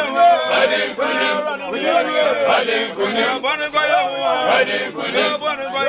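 A group of men chanting together in short repeated phrases, many voices overlapping.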